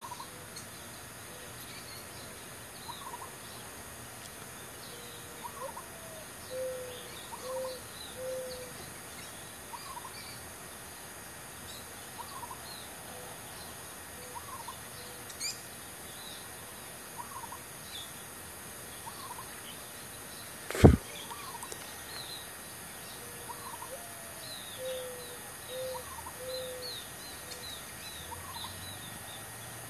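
Birds calling: a short call repeated about every second and a half, short groups of low cooing notes, and scattered high chirps, over a faint steady hiss. A single sharp click about two-thirds of the way through is the loudest sound.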